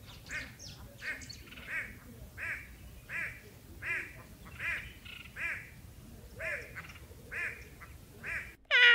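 A bird giving a steady series of short, repeated calls, about one every 0.7 seconds. Near the end, after an abrupt cut, comes a single loud animal call that falls in pitch.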